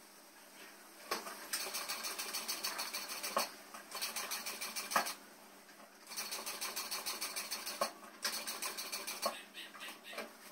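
Industrial sewing machine stitching denim around a curved neckline in four short, fast runs, stopping briefly between them while the fabric is turned along the curve.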